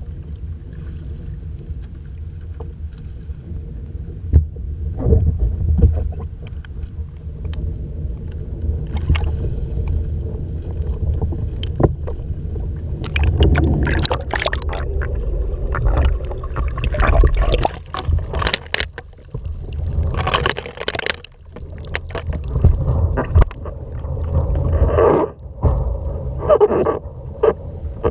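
Wind buffeting a boom-mounted camera's microphone as a windsurfer sails, with water splashing and slapping against the board. The splashing grows busier about halfway through.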